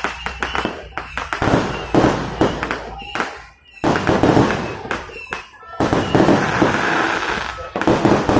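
Fireworks going off in many rapid, repeated bangs, with a brief lull a few seconds in, amid the voices of a crowd.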